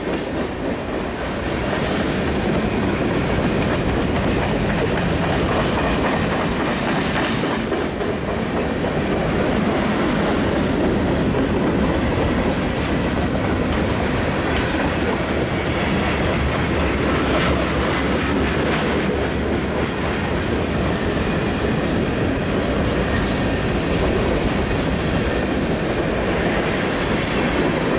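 Freight train cars rolling past at close range: a steady noise of steel wheels running on the rails.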